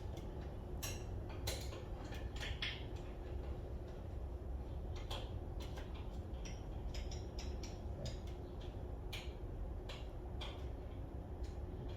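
Light, irregular metallic clicks and taps of hand tools and engine parts being handled while the distributor is fitted, over a steady low hum.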